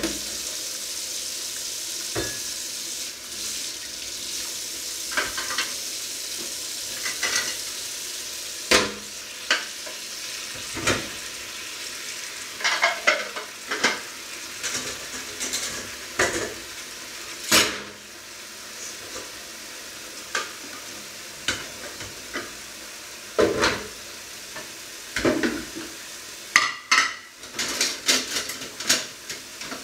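Kitchen tap turned on and running into a stainless-steel sink while dishes are washed, with scattered clinks and knocks of cutlery and crockery against the sink.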